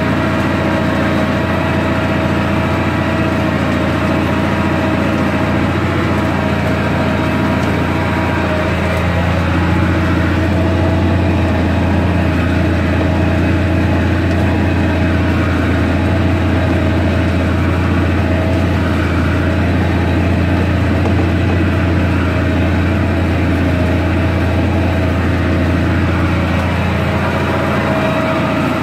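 Belarus MTZ 1221.5 tractor's diesel engine running steadily under load while pulling a subsoiler through the field, heard from inside the cab.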